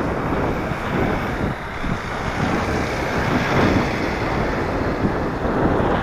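Wind buffeting the microphone of a camera travelling along a road, a steady rushing rumble with road noise underneath.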